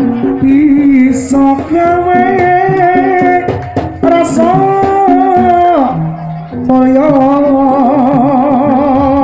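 Javanese jaranan accompaniment music: a long-held melody line with wavering pitch over hand-drum strokes. About six seconds in the melody slides down and breaks off briefly, then comes back.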